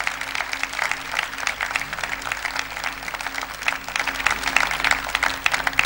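Audience applauding: a dense, steady round of clapping.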